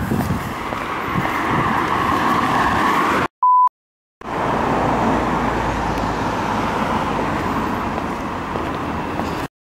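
Steady road traffic noise, with a deeper rumble in the middle. About three seconds in it stops for a moment of silence that holds one short, high electronic beep, then it returns and cuts out again near the end.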